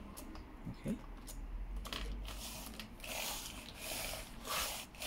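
Plastic clicks and clatter of a replacement laptop keyboard being pressed down into its chassis, its retaining clips snapping into place, with scattered clicks at first and a denser run of clattering in the second half.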